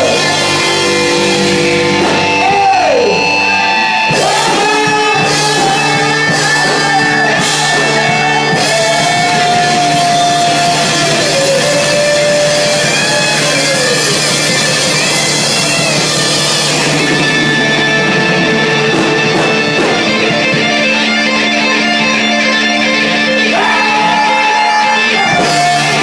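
Live rock band playing loudly: electric guitars over bass and drums, with notes sliding up and down.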